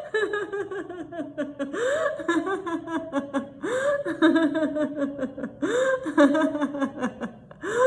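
A woman's laughter-yoga howl-and-laugh: a rising howl, then a run of choppy 'ha-ha' laughter, repeated about every two seconds, four times over.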